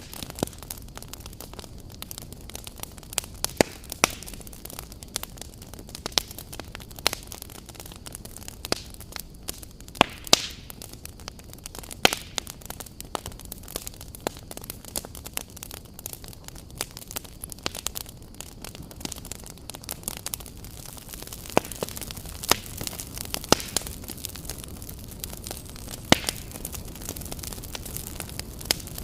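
Wood campfire burning, with irregular sharp crackles and pops over a steady low hiss.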